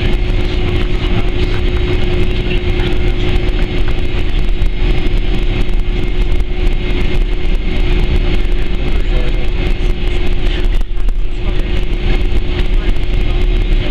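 Boeing 767-300ER engines running at taxi power, heard inside the cabin as a steady hum and rumble with a constant low tone. The sound dips briefly about eleven seconds in.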